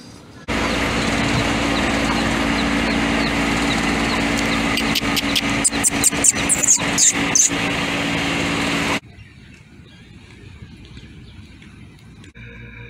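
Chicks peeping in short, high chirps over a steady motor hum and outdoor noise. A cluster of sharper high calls comes about six to seven seconds in. It all cuts off suddenly at about nine seconds.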